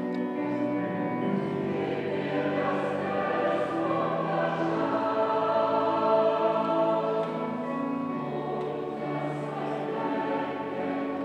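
Choir singing sacred music in held, sustained notes, ringing in a large, reverberant church.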